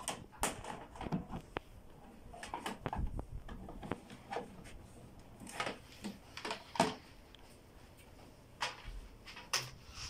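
Scattered clicks, taps and rustles of hands handling a printer's power cord and plugging it into the back of the printer.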